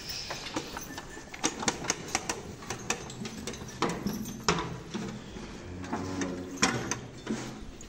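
Irregular clatter of knocks and clicks from a metal feed bucket being tipped and knocked against a cattle feed trough as feed is poured out.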